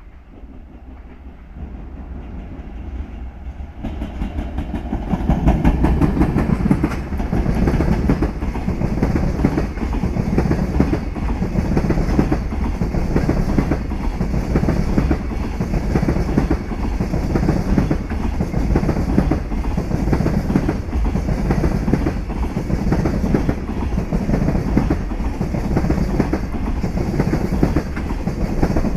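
Freight train passing close by. It grows louder over the first few seconds, then the wagons' wheels keep up a steady clickety-clack in a regular beat about once a second.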